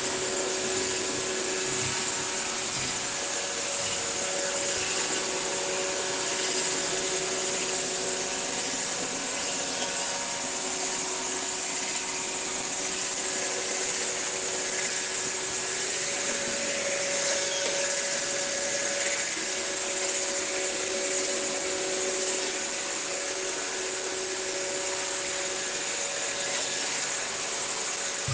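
Steady white noise, an even hiss, with a couple of faint steady hums that fade in and out.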